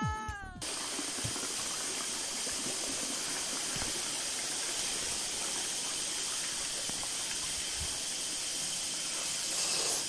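Steady, even rush of falling water from a waterfall. Background music cuts off within the first second.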